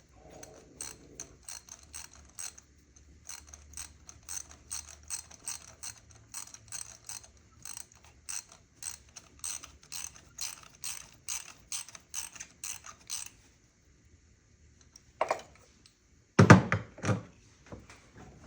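Hand ratchet wrench clicking steadily, about two to three clicks a second, and stopping about thirteen seconds in; a knock and then a short clatter of louder knocks follow near the end.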